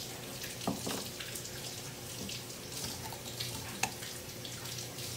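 Golden retriever puppy licking and mouthing a carrot on the floor: scattered wet smacks and short clicks over a steady hiss.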